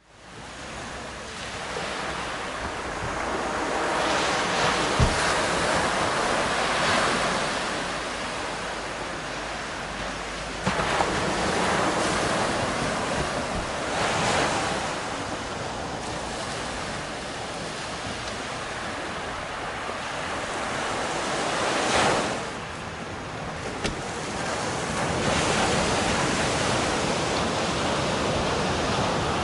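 Small sea waves washing onto a sandy beach, the surf swelling and fading every several seconds, with some wind on the microphone.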